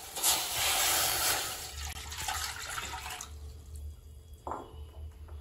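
Water poured from a bowl into a stainless steel pan, splashing for about three seconds, then quieter, with one short splash about four and a half seconds in.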